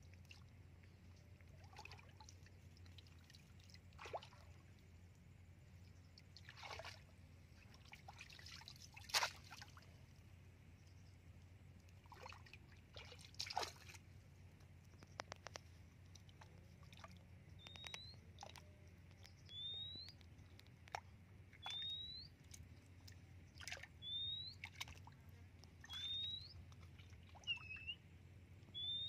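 Water splashing and sloshing as hands work a bamboo plunge-basket fish trap in shallow muddy water, a handful of separate splashes with the loudest about a third of the way in. From about halfway through, a bird repeats a short rising chirp about every two seconds.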